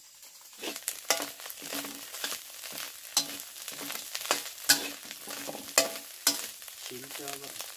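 Food sizzling as it fries in a pan while it is stirred, with a utensil clacking against the pan several times.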